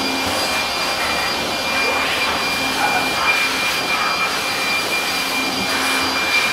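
Handheld electric blower running steadily, a rush of air with a constant high whine, used to blow-dry a washed mountain bike.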